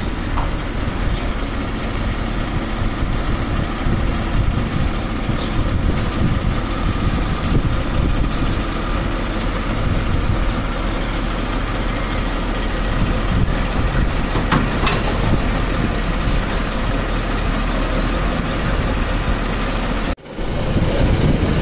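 Heavy diesel truck engine idling steadily, cutting out briefly near the end.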